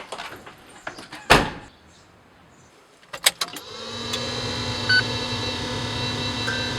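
Car door shut with a single heavy thud, then clicks as the key is worked. About halfway through, a steady electrical hum comes up as the ignition is switched on, with a short beep near the end, just before the engine is cranked.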